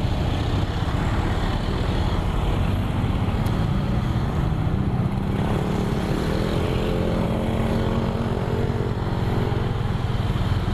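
Motorcycle engine running steadily while riding slowly, with road noise and a steady low rumble. Other motorcycles pass, and a fainter engine tone comes and goes in the middle stretch.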